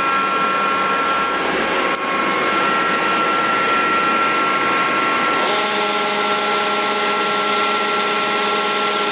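Mori Seiki NL1500 CNC lathe running, a steady whine made of several tones over a hiss of noise. About five and a half seconds in, the lower tones shift to a new set and the hiss grows, as a motor changes speed or another drive starts.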